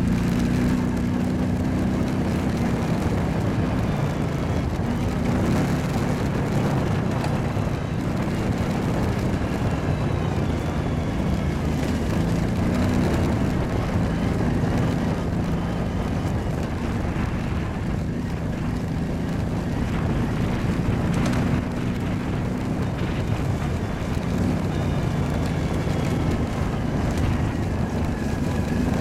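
Kawasaki ATV engine running while riding, its note shifting up and down now and then with the throttle.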